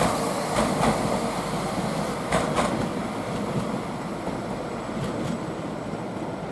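A passenger train running through the station, its wheels clicking in pairs over the track, the rumble growing slowly fainter.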